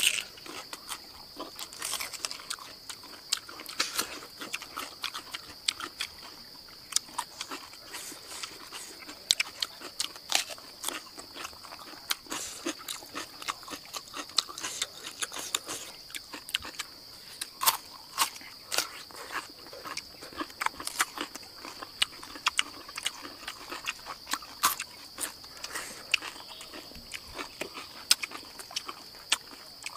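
Close-up eating sounds: irregular chewing, crunching and mouth smacks, many sharp clicks throughout. Beneath them runs a steady high buzz of insects.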